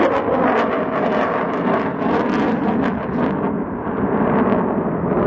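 Fighter jet flying overhead: loud, continuous jet-engine noise with a ragged crackle running through it.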